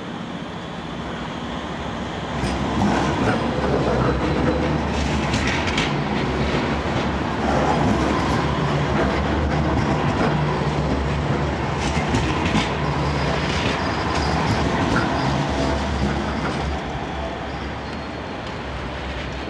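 Manchester Metrolink Bombardier M5000 tram running along street track past the platform: a steady low running hum, louder from about two seconds in and easing off near the end, with scattered wheel-on-rail clicks and knocks.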